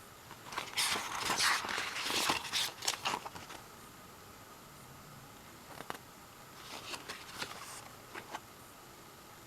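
Rustling and crinkling of album packaging being handled, in two spells, the first longer and louder, with a few sharp clicks between.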